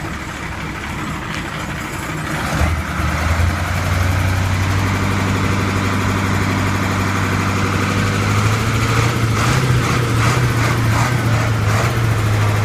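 Heavy truck engine running at idle with a steady low drone. About two and a half seconds in it grows much louder, and its pitch steps up a little about three-quarters of the way through.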